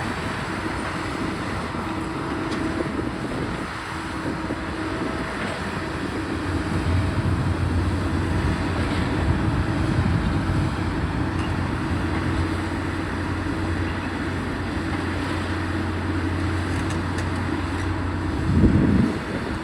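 Heavy demolition machinery running with a steady engine drone. A deeper hum sets in about a third of the way through and stops just before a brief louder surge near the end.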